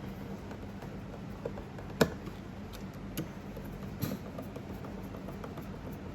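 A few small sharp clicks and taps from screws and a screwdriver being handled as a fusion splicer's outer cover is screwed back on, the loudest about two seconds in, over a steady hum.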